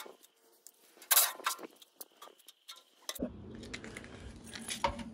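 Metal clanks and clinks of sheet-metal cabinet parts and tools being handled while an air dryer is taken apart, with the sharpest clank about a second in. From about three seconds in, a low rumbling rustle with light knocks.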